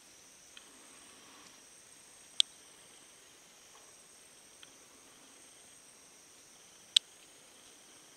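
Steady high-pitched drone of forest insects, broken by two sharp, loud clicks, one a little over two seconds in and one near the end, with a few faint ticks between.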